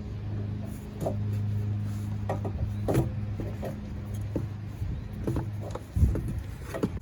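Scattered light clicks and knocks, about one a second, from tools and engine parts being handled during water pump removal, over a steady low hum.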